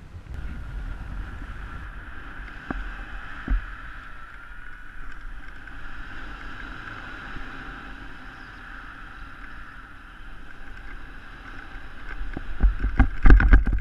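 Wind rushing over a helmet-mounted camera's microphone as a paraglider flies, a steady rush with one thump about three and a half seconds in. Near the end the buffeting grows heavier and louder.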